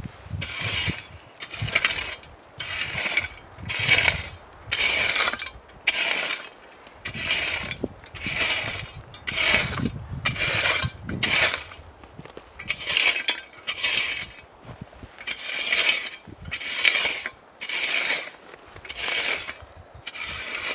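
A hand tool scraping or rasping in steady, repeated strokes, about one a second.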